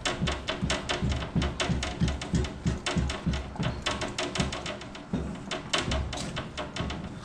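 Stiff pap being stirred in a large pot, the pot knocking and rattling on a glass-top stove in a fast, regular rhythm of several knocks a second, with a short pause about five seconds in.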